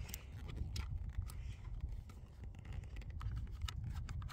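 Wind buffeting a phone's microphone as a steady low rumble, with scattered light clicks and scratches of the phone being handled and moved.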